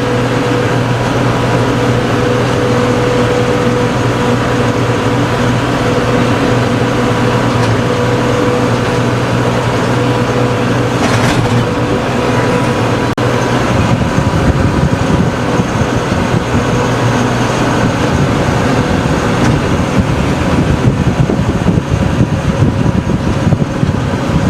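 Tractor engine running steadily under load, driving a PTO rotary tiller through soil. About halfway through, the low rumble turns rougher and louder.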